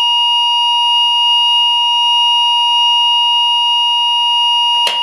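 ESP fire alarm sounders set to a continuous tone, sounding one loud, unbroken pitch: the system in alarm after a manual call point is triggered with its test key. A short click near the end.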